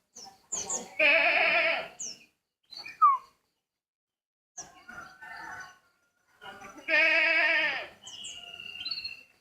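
An unidentified bird giving a strange, quavering, goat-like bleating call twice, each about a second long, with short whistled chirps in between.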